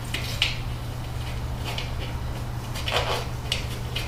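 Scattered light clicks and knocks from hands handling a bicycle wheel and inner tube while the tube's valve stem is pushed through the rim's valve hole, over a steady low hum.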